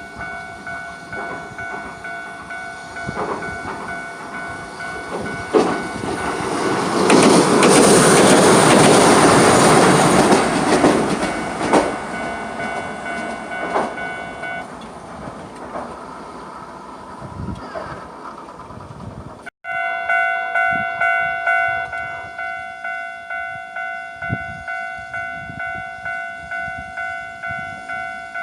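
Level crossing warning signal ringing with a steady repeating tone while a Hiroden train runs through the crossing, its rumble rising to a loud peak for a few seconds around the middle and then fading. The warning signal stops after the train has passed, and after a sudden break it is ringing again, pulsing about once a second.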